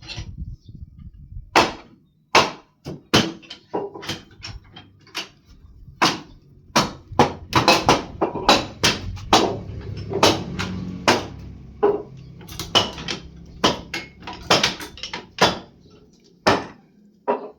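A series of irregular sharp knocks and clanks, like heavy blows on wood and metal, coming thickest in the middle, with a low machine rumble underneath them around the middle.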